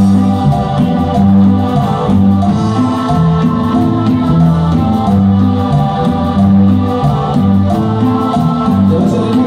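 Latin Christian dance music from a band: electronic organ chords held over a bass line that steps from note to note about twice a second.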